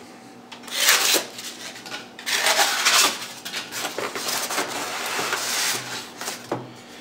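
Styrofoam packaging inserts squeaking and scraping as the metal stand parts are worked loose and lifted out of them. This comes in bursts: one about a second in, another from two to three seconds in, and a longer stretch from about four to six seconds.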